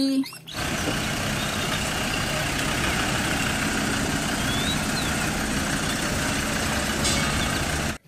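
Engine of a trackless tourist road train running steadily as it drives along: an even hum and noise that cuts in suddenly about half a second in and stops abruptly at the end.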